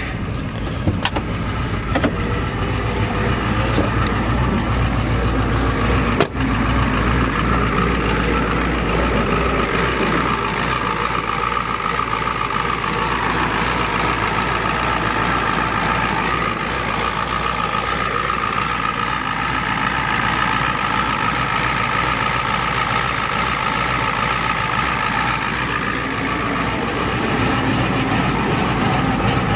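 1993 Ford F-250's 7.3L IDI V8 diesel idling steadily, which the owner puts down to a failing injection pump and fuel pump. A single sharp knock about six seconds in.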